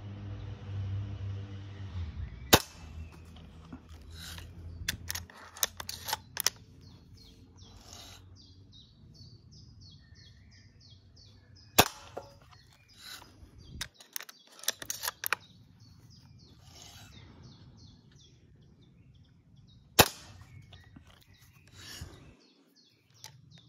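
Diana Oktoberfestgewehr air rifle fired three times, a sharp crack a few seconds in, another midway and another near the end. Between the shots come clusters of metallic clicks and clacks as the break-barrel rifle is cocked and loaded. Birds chirp faintly in the background.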